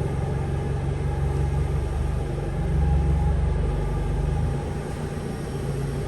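A vehicle engine running with a steady low rumble, getting louder about three seconds in and easing off toward the end.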